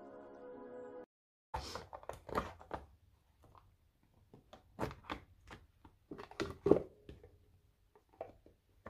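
Soft ambient music cuts off suddenly about a second in. Then comes a string of irregular light taps, clicks and rustles: tarot and oracle cards being handled and laid down on a table.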